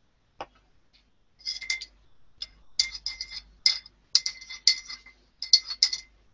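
A single click, then from about a second and a half in, several bursts of quick light clicks with a faint ringing edge.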